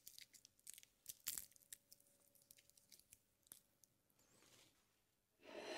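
Faint crackles and small clicks of fingers squeezing soft roasted garlic cloves, their papery skins crunching. A short, breathy rush of noise starts near the end.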